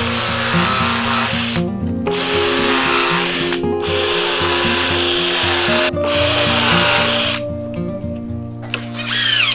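Power drill with a countersink bit boring pilot holes into plywood, in four runs of about two seconds each with short pauses between, then a brief spin-up with a rising whine near the end.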